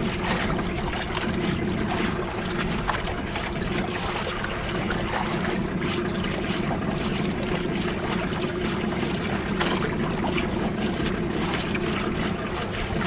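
Steady hum of the outrigger fishing boat's engine running, with wind noise on the microphone.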